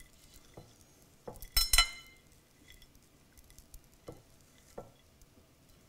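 Fingers patting and pressing chopped parsley and green onion onto a piece of goat cheese in a ceramic bowl: soft scattered pats and rustles, with a brief cluster of sharp clinks against the bowl about a second and a half in.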